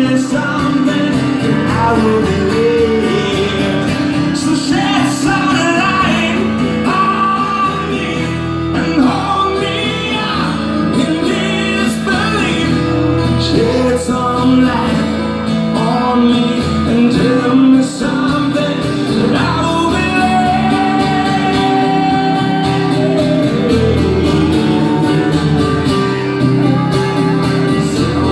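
Live music: guitar played with a man singing over it.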